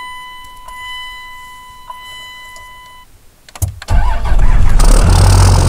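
A steady high electronic tone stops about three seconds in. Then a straight-piped 5.9-litre Cummins inline-six turbo diesel cranks for a moment and fires almost at once on a cold start in about 20 °F, and settles into a loud, steady idle.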